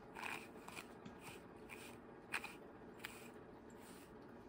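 Faint rustling of a doll's wig hair being handled, with a few small clicks, two of them sharper about two and three seconds in.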